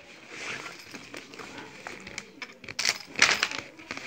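A black fabric bag being handled and rummaged close to the microphone: rustling, with small objects clicking and clinking inside it and a few sharper clicks about three seconds in.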